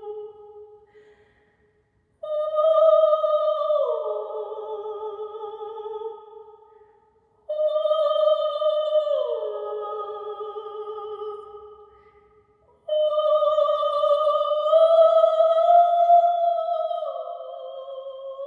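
Wordless high singing voice, operatic in style, with vibrato: three long held notes, each starting suddenly, sliding down to a lower note partway through and then fading away.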